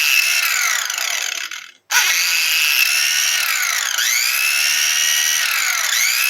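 Makita angle grinder, a 220-volt tool running on 110 volts, with a high whine whose pitch keeps sagging and recovering. It cuts out for a moment just under two seconds in, then starts up again. It runs unevenly, which the owner suspects is a blown bearing.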